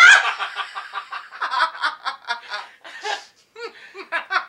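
A person laughing: a long run of short snickering chuckles, loudest at the start, with a brief pause about three and a half seconds in.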